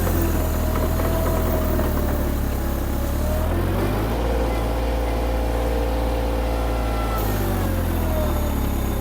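VMENG 580T Pro mini skid steer engine running at half throttle under hydraulic load. Its note sags and recovers a couple of times as the boom is worked: the engine bogging down, which the owner puts down to the 16 GPM hydraulic pump.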